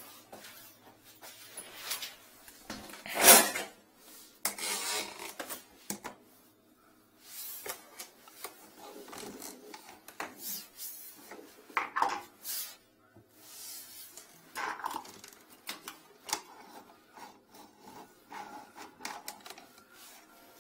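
Irregular rubbing, scraping and clattering as a drain inspection camera's yellow push cable is handled and fed off its reel into a floor drain, with the loudest clatter about three seconds in.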